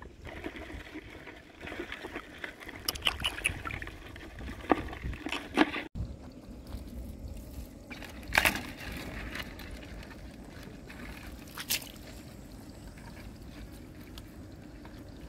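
Shallow muddy water sloshing and splashing, with a few sharper splashes scattered through, the loudest about halfway in.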